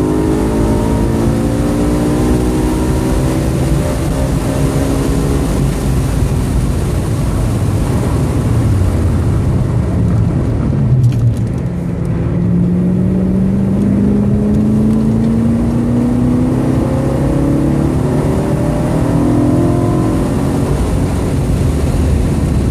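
2013 BMW M3's V8 engine heard from inside the cabin during a track lap. The engine note falls over the first several seconds as the car brakes from about 85 mph for a slow corner, then climbs steadily as it accelerates out.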